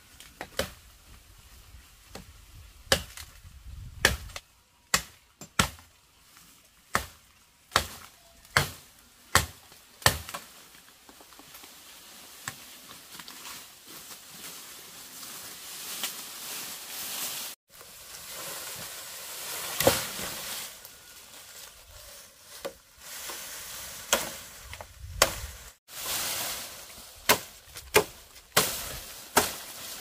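Repeated sharp chopping strikes, a series of knocks about one a second, giving way to a steady hiss in the middle and returning near the end.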